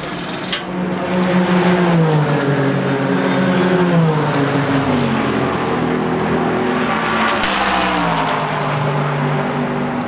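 Racing car engines passing on the circuit, with the engine note dropping in pitch as each car goes by, several in turn.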